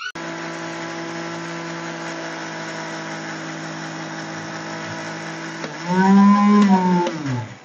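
A steady machine-like hum made of several fixed tones cuts in abruptly at the start. About six seconds in, a person's voice calls out in one long drawn-out tone that rises and then falls, louder than the hum.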